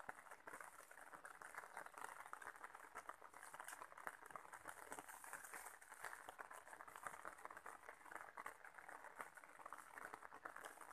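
Faint, steady patter of light rain falling on leaves and grass, a dense fizz of tiny drop impacts.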